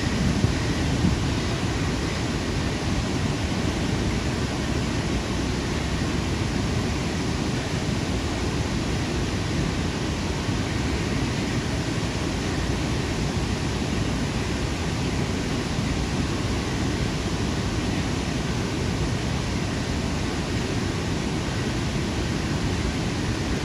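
Steady rushing of river water pouring over the open gates of a river weir, an even, unbroken noise with no changes.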